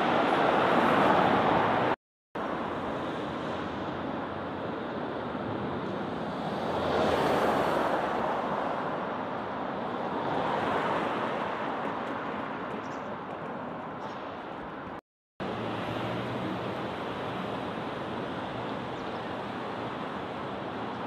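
Road traffic in a town street: a steady hiss of tyres and engines that swells as vehicles drive past, loudest as a van passes near the start. The sound cuts out completely twice, briefly.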